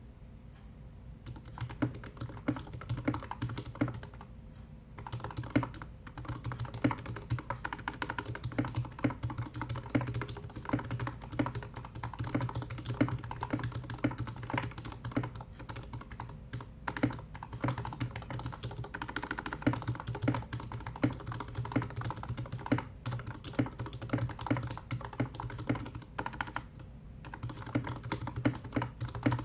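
Slow typing on a GK61X mechanical keyboard with lubed Gateron Red Ink V2 linear switches, PBT Cherry-profile keycaps, a stainless steel plate and a plastic case. The keystrokes sound mushy and muted because the Cherry-profile keycaps interfere with the switches, owing to the orientation of the board's hotswap sockets. Typing starts about a second in, with a short pause around four seconds in.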